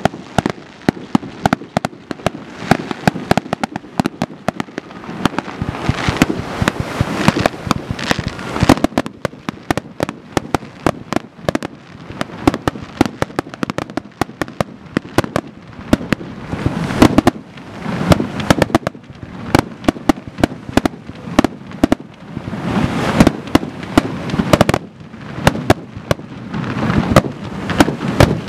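Aerial fireworks display: shells launching and bursting in quick succession, many sharp bangs a second throughout, with louder, denser clusters here and there.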